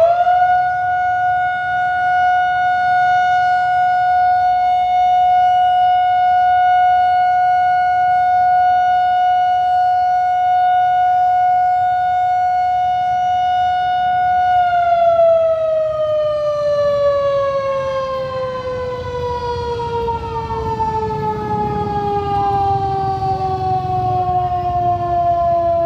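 A siren winding up fast to one steady tone, held for about fourteen seconds, then slowly sliding down in pitch as it winds down.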